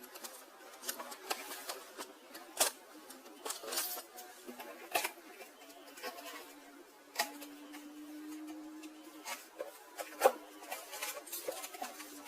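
Irregular clicks, taps and knocks of packaging and cookware being handled during unboxing, with a short low hum partway through.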